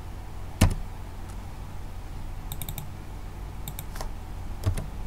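Computer keyboard being typed on in short runs of key clicks, the loudest a single keystroke about half a second in.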